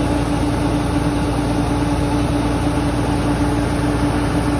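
Engine of rice harvesting machinery running steadily at constant speed, with a strong even hum over a low rumble.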